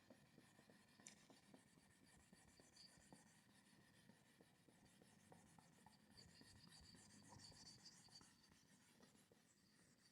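Near silence with faint, intermittent scratching of someone writing by hand.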